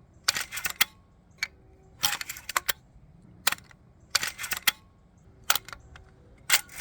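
Sharp metallic clicks and clinks in small clusters about every two seconds, with single clicks between them, from handling the Marlin 1895 lever-action rifle and its .45-70 cartridges.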